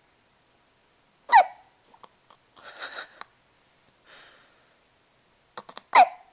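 Hiccups: two sharp hics about four and a half seconds apart, each with a short squeaky note that falls in pitch, with soft breathing between them.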